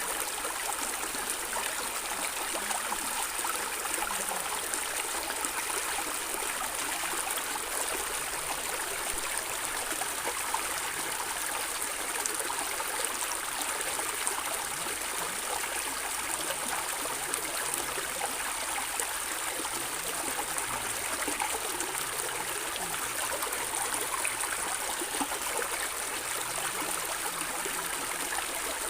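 Flowing stream water gurgling and trickling steadily: an even rush with fine splashing and no breaks.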